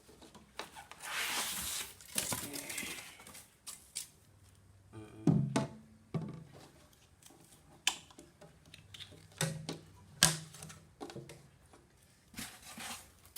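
Knocks and clatter of an aluminium-and-galvanised-steel motorcycle side pannier being handled. A few sharp knocks, some with a short low ring, follow a rustle in the first seconds.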